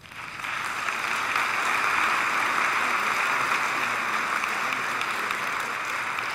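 Audience applauding, building up within the first half second and then holding steady.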